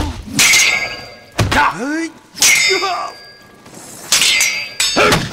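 Movie sword-fight sound effects: a quick series of about six sharp steel strikes, blades clashing with a metallic ring after each, with short swooping whooshes between them.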